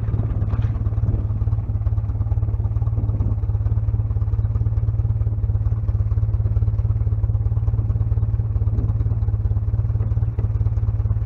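The 1956 Jeep CJ5's Hurricane four-cylinder engine idling steadily, shortly after a cold start.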